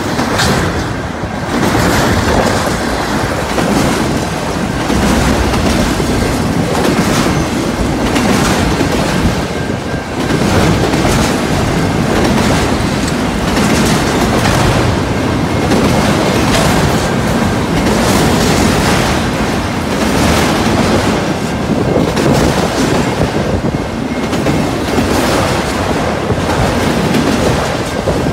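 Freight train of autorack cars rolling past close by: steel wheels clattering over the rail joints in an irregular clickety-clack over a steady rumble.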